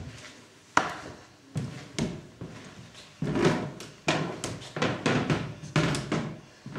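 Footsteps with irregular knocks and thuds, about one to two a second, echoing in a room.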